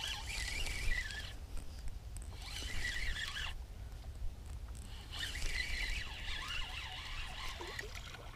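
Spinning reel cranked in three bursts of whirring with short pauses between, winding in a hooked fish.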